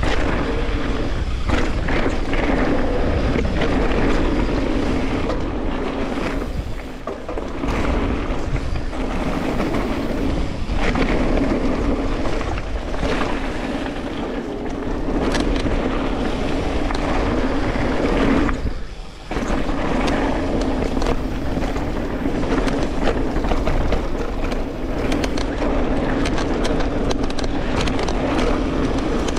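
Specialized Turbo Levo electric mountain bike ridden fast along a dirt jump trail: wind buffeting the camera microphone, tyre rumble, and a steady hum, with scattered rattles and knocks over bumps. The sound drops away briefly twice.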